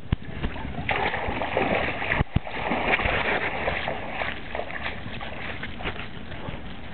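Water gushing and splashing at the outlet of a beach-sand washing machine as it discharges washed fine sand. The rushing is loudest for the first few seconds, then settles lower, with one sharp knock a little after two seconds.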